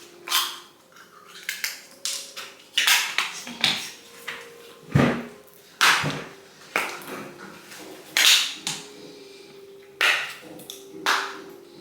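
Plates and cutlery clinking and clattering, a dozen or so separate knocks of crockery being handled and set down.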